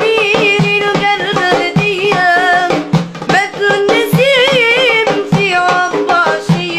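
A boy singing a Tunisian song in a high voice with wavering, ornamented runs, accompanied by a hand drum beaten in a steady rhythm.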